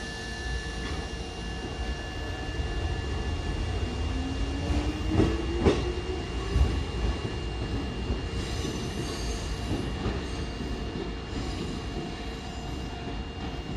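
Kotoden electric train running on the line, a steady rumble with a whine rising in pitch near the middle and a few sharp knocks of wheels over rail joints just after.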